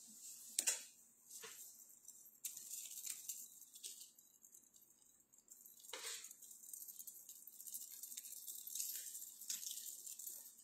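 Faint handling noise: a few light clicks and short rustles over a low room hiss.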